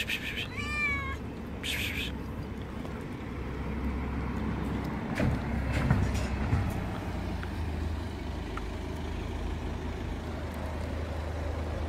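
A cat's short, wavering meow about half a second in, over a steady low rumble that grows louder for a few seconds in the middle.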